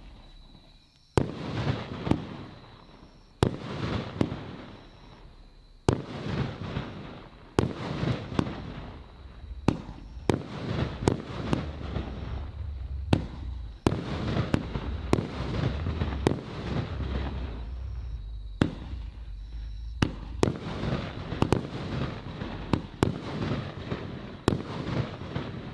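A 13-shot, 30 mm firework battery (Argento 'Orchid') firing its shots in sequence: sharp launch thumps and loud bangs as the shells break, each trailed by crackle and echo. The shots come closer together in the second half.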